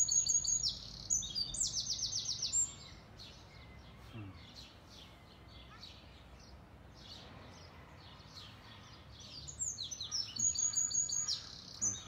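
A small songbird singing in two bouts of high, quickly changing notes: the first, with a fast trill, stops a little under three seconds in, and the second comes near the end; faint chirps between them over a low steady background hum.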